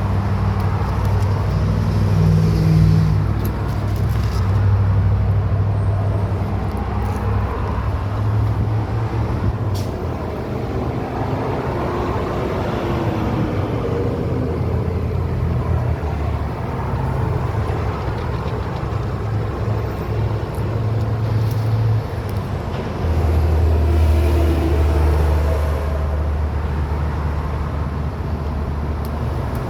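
Steady low hum of a vehicle engine running at idle, stepping in pitch and level a few times, with a faint click now and then.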